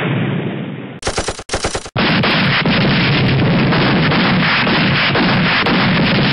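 Gunfire sound effects: the tail of an explosion dies away, then two short bursts of machine-gun fire about a second in, followed by continuous rapid gunfire.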